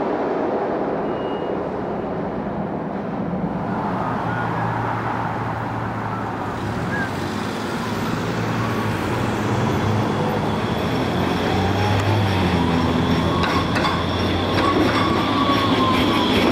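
A subway train rumbling in the tunnel, then a SEPTA PCC streetcar running along street track. Under a steady hum it gives a whine that rises and then falls in pitch, with a few sharp clicks of wheels over rail joints as it passes.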